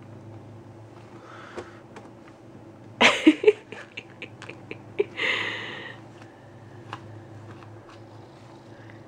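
Siamese cat purring steadily while being stroked. Loud crackling of plastic bags beneath the cat comes about three seconds in, with a second rustle about two seconds later as the cat shifts.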